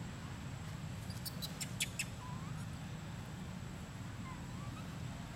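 A quick series of short, sharp, high-pitched squeaks from long-tailed macaques, about a second and a half in, over a steady low rumble, with two faint short whistles later on.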